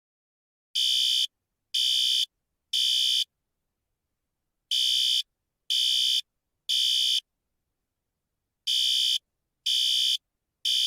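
System Sensor SpectrAlert Advance fire alarm horn sounding the Code-3 temporal pattern: three high-pitched half-second blasts, a pause, then the triple again, three times over. The Code-3 pattern is the standard fire evacuation signal.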